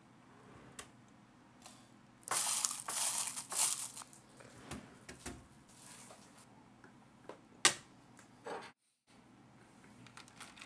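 Vending-machine ice in its packaging being handled and opened: crinkling and crunching in a cluster of bursts from about two to four seconds in, followed by a few scattered clicks and knocks.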